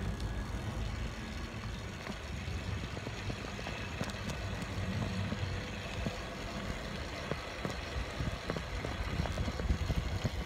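Riding a bicycle over asphalt with the phone recording: a steady rush of wind on the microphone and tyre rumble, with scattered small clicks and rattles.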